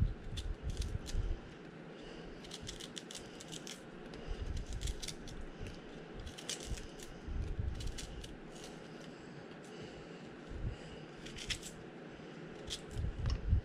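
Scattered light clicks and small clattering handling sounds, with a few dull low knocks now and then.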